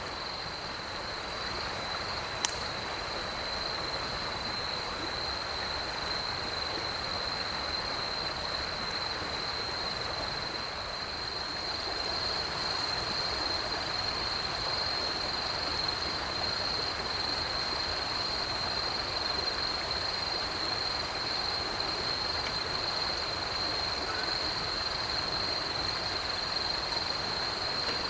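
Night insects trilling in one steady, unbroken high-pitched chorus over a soft, even hiss. A single sharp click cuts through a little over two seconds in.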